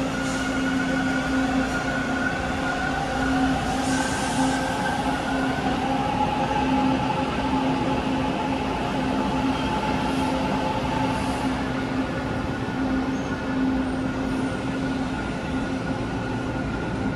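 TTC T1 subway train pulling out of the station on the far track, its motor whine rising in pitch as it speeds up, over a steady low hum.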